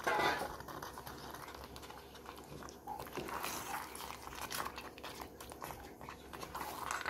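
A metal spoon mixing raw chicken pieces into a thick gravy in a pot: wet squelching and slapping, with short irregular scrapes and clicks of the spoon. It is louder at the very start.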